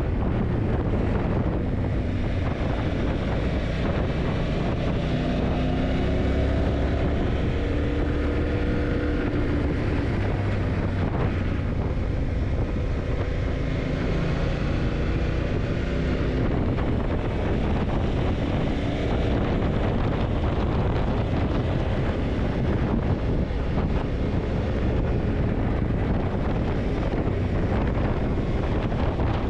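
Yamaha TDM900's parallel-twin engine running under way, its pitch rising and falling with the revs between about five and sixteen seconds in, over a steady rush of wind on the microphone.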